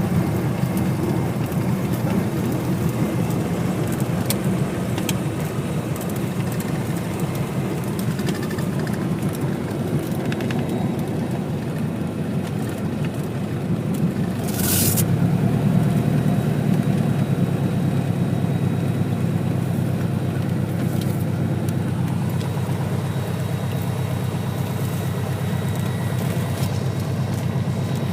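Cessna 177RG Cardinal's four-cylinder Lycoming engine running steadily at low power. About halfway through it steps up in level and holds there, with a brief hiss at the same moment.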